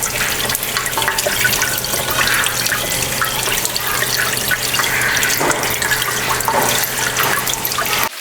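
Water pouring and splashing steadily as a small aquarium is filled. It cuts off suddenly near the end.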